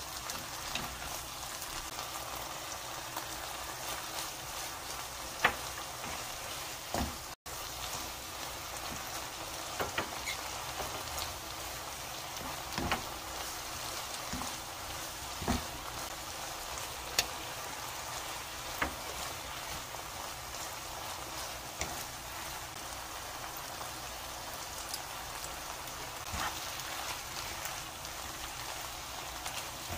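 Pork, onion and green bell pepper strips sizzling as they are stir-fried in a nonstick wok, a steady frying hiss. Now and then the wooden spatula and metal spoon tap or scrape against the pan, and the sound drops out for an instant about seven seconds in.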